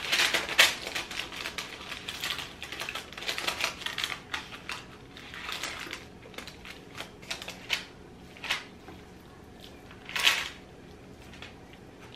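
Metal kitchen tongs clicking and scraping against a parchment-lined metal baking tray while cooked spaghetti is spread out and evened. Rapid clicking for the first several seconds, then sparser clicks, with a louder scrape about ten seconds in.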